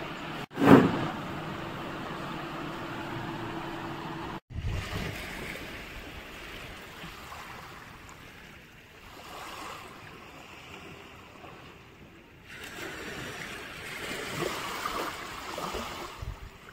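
Steady rushing noise of wind and sea surf, broken by several abrupt cuts, with one short loud knock about a second in.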